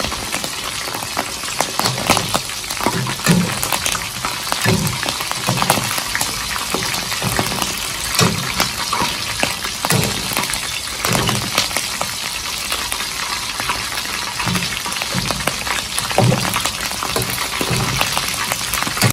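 Whole sparrows deep-frying in hot oil in a metal wok: steady sizzling and crackling, with the scraping and knocking of a metal utensil stirring and turning them.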